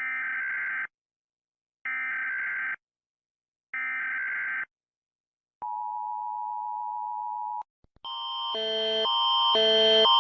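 Emergency Alert System SAME header: three digital screeching data bursts, each about a second long with a second's gap between, then a steady attention tone for about two seconds. About eight seconds in, a louder alarm of stacked tones starts, alternating pitch about twice a second and swelling in volume.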